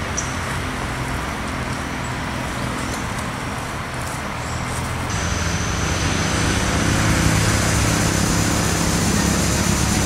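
Steady rumble of a vehicle engine with road noise, growing louder about halfway through, when a thin high steady tone joins it.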